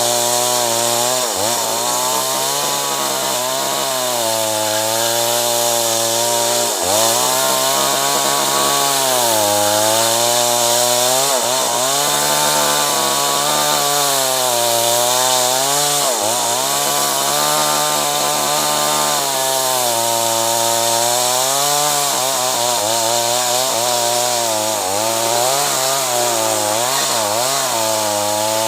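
Two-stroke chainsaw running under load, cutting acacia wood. Its pitch drops sharply and recovers every few seconds as the chain bites into the wood.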